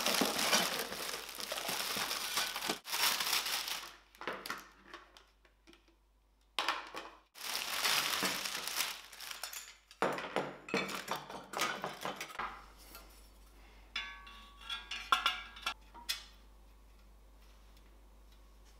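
Plastic packaging crinkling and rustling as black metal wire rack parts are unwrapped and handled, in several stretches with pauses. After that come a run of light metal clicks and clinks as the wire pieces are fitted together.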